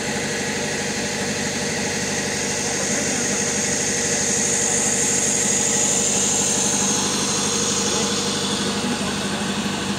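A vehicle engine running steadily, with a high hiss that swells in the middle and fades.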